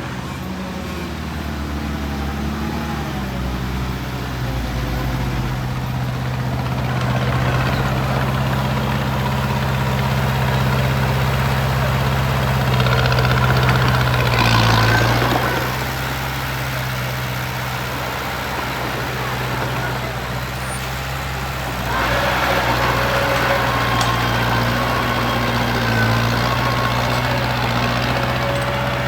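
Heavy construction machine's engine running steadily, growing louder with an added hiss in two stretches, from about a quarter of the way in to about halfway and again near the end.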